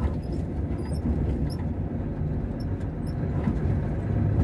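A vehicle's engine running and its tyres rolling slowly over a rutted dirt road, heard from inside the cab as a steady low rumble. A few faint short high chirps sound over it.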